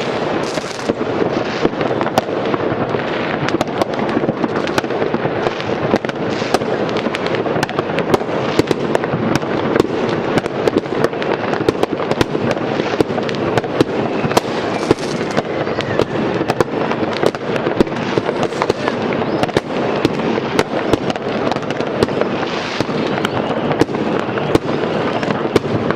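New Year's Eve fireworks and firecrackers (Böller) going off without pause across a city: a continuous dense crackle and rumble of many distant rockets and bangers, punctuated by frequent sharp nearer bangs.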